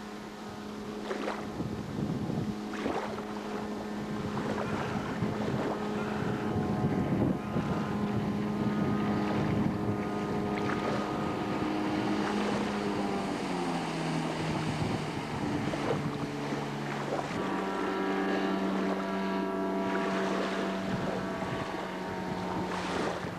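Waterjet boat's Nissan car engine running under way. Its steady note drops lower about thirteen seconds in as the revs come down, then picks back up a few seconds later. Wind buffets the microphone and water rushes past the hull.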